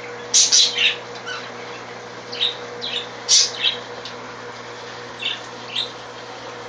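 Pet parakeets squawking and chirping in short, scattered calls, loudest about half a second in and again around three and a half seconds in, over a steady low hum.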